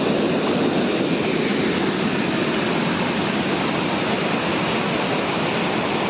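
Muddy water pouring over a dam's weir and churning into foam: a steady rushing of water.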